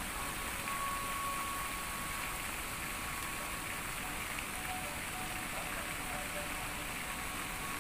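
Steady outdoor background hiss with a few faint, long-held tones sounding now and then.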